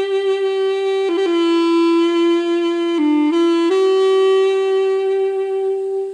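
Background music: a solo wind instrument playing a slow melody of long held notes. It steps down in pitch about a second in and again around three seconds, returns to the first note shortly after, and starts to fade near the end.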